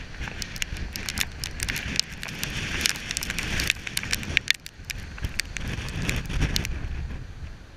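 Heavy storm surf breaking along a rocky shore, a continuous hissing rush that swells briefly in the first half, with wind buffeting the microphone in an uneven low rumble. Many sharp ticks throughout from drops of rain or blown spray striking the camera.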